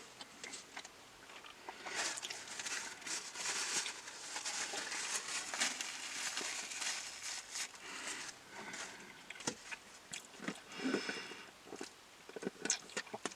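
A person eating close to the microphone: biting and chewing with rustling of food wrappers, many small clicks, busiest for several seconds and sparser after about eight seconds in.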